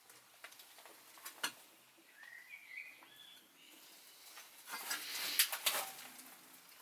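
A short bird call about two seconds in, over scattered light clicks. About five seconds in comes a louder stretch of rustling and crackling.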